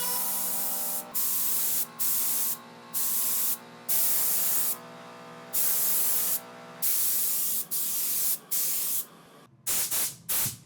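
Paint being sprayed onto a model car in a series of short hissing bursts, most about a second long with brief pauses between them, the last few quicker and shorter.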